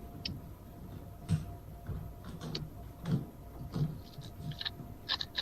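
Speedcube being turned fast during a solve: irregular light plastic clicks and clacks, with a few duller knocks.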